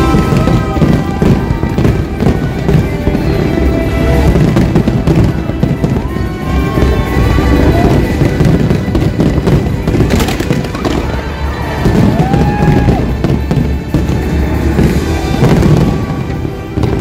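Fireworks bursting continuously over loud show music from loudspeakers, with one sharp bang about ten seconds in.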